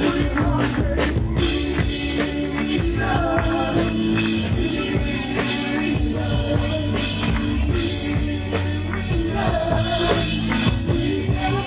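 Live band music with a drum kit and singing voices on microphones.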